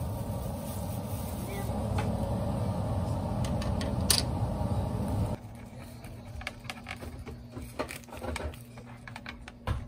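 A steady low hum that cuts off abruptly about five seconds in, then a block of Gruyère cheese scraped across a metal hand grater in quick, irregular strokes.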